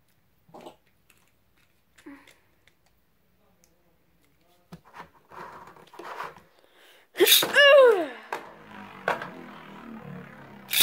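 A person sneezing loudly once, about seven seconds in, between stretches of light rustling and clicking as a Beyblade and its launcher are handled over a plastic stadium. A sharp loud crack comes at the very end.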